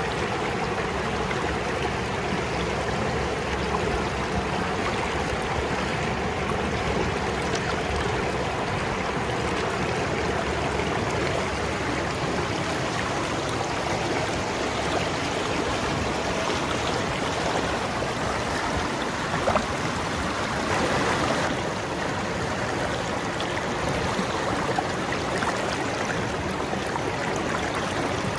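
River water flowing over rocks: a steady rushing and gurgling, with a brief louder splash about two-thirds of the way through.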